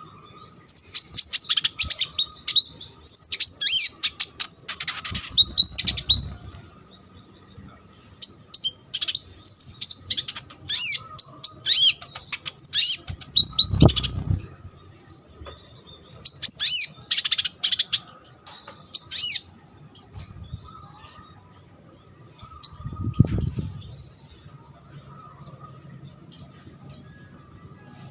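Brown-throated sunbird (kolibri ninja) singing a fast, high chirping song in repeated bursts that thin out near the end. Three dull low thuds come in between the phrases.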